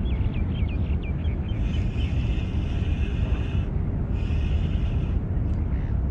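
Fishing reel whirring in bursts of a second or two as a hooked pinky snapper is played in on a bent rod, over a steady low rumble of wind on the microphone.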